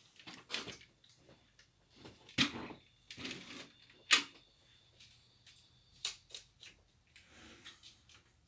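Plastic LEGO models clicking and knocking as they are handled and set down on a shelf, in a scatter of short sharp knocks with the loudest about four seconds in.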